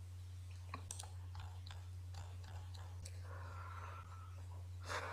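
Faint computer mouse clicks, a few short scattered clicks, over a low steady electrical hum.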